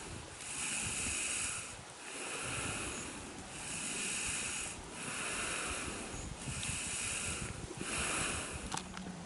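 A horned cow breathing in a steady rhythm, one hissing breath about every second and a half. A short click near the end.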